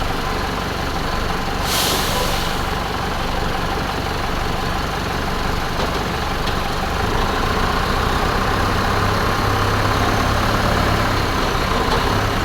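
A heavy vehicle engine idling steadily, with a short hiss about two seconds in. The engine note grows a little heavier from about seven seconds.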